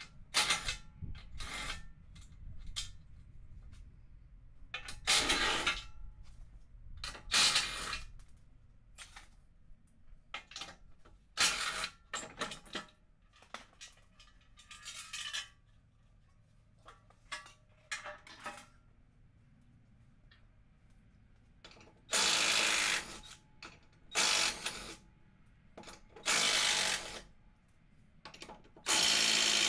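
Sped-up sound of 14 mm nuts being wrenched off a vehicle's front crash bar: scattered sharp metal clicks and clinks, then four louder bursts of about a second each in the last third.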